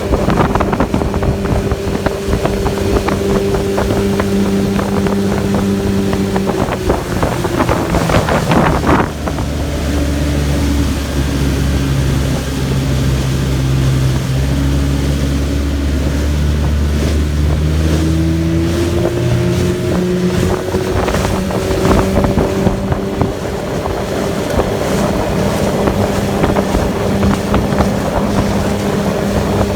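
Outboard motor pushing a riveted aluminium jon boat at high speed with a steady engine note. About eight seconds in it throttles down to a lower, slower note, then about twenty seconds in it climbs back up to full speed. Wind and water rush throughout.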